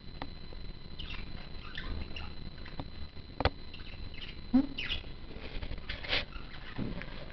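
A pet animal scratching its head by rubbing it against a door: irregular scratching and rustling, with a few sharp clicks or knocks, the loudest about three and a half and four and a half seconds in.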